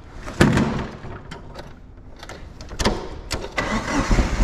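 Knocks and clatter of an old TCM forklift's seat and engine cover being lowered and shut, the loudest thud about half a second in, followed by more light knocks as the driver climbs aboard. Near the end the forklift's engine is cranked and starts, settling into a steady idle.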